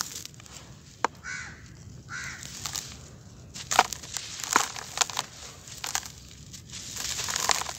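Dry, gritty sand-and-dirt clumps crushed and crumbling in bare hands, with sharp crunches and a steady hiss of grains pouring into a plastic basin. A crow caws twice in the background early on.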